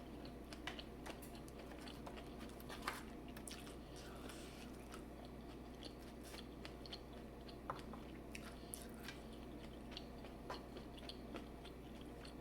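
A person chewing and biting into seafood boil food, with scattered small crunches and clicks.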